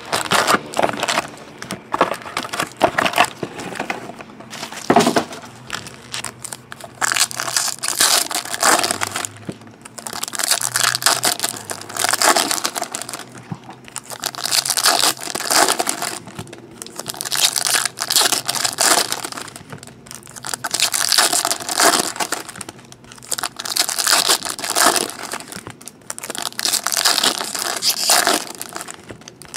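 Foil wrappers of Topps Chrome trading-card packs crinkling and tearing as they are handled and ripped open by hand, in repeated bursts about every two seconds.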